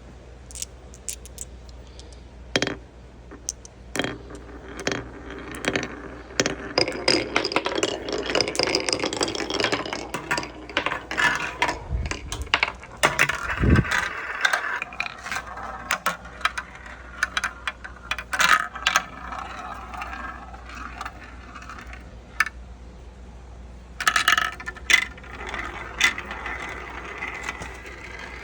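Marbles rolling and clattering down a Kumi Kumi Slope marble run: a stream of sharp clicks and rattles as they drop and strike the track pieces, with denser rolling stretches and a low thud about fourteen seconds in.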